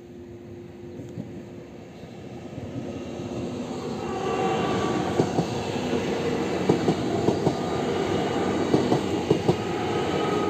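A ČD RegioPanter electric multiple unit approaching and running over the level crossing. Its rumble builds over the first few seconds into a loud, even rolling noise. From about five seconds in, sharp clacks of the wheels over the crossing and rail joints come through, with a few high tones above the noise.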